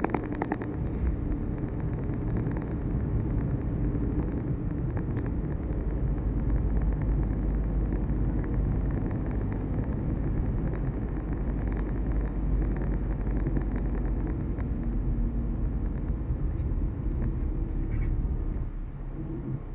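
A moving road vehicle: a steady low rumble of engine and road noise, which drops somewhat near the end.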